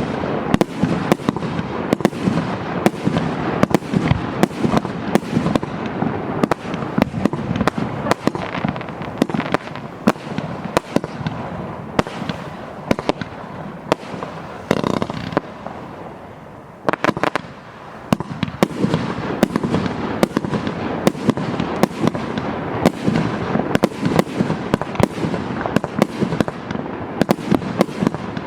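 200-shot 1.2-inch firework cake (MC12200 Spectrum) firing in rapid succession: a dense run of bangs, several a second, that thins out briefly about two-thirds through before picking up again.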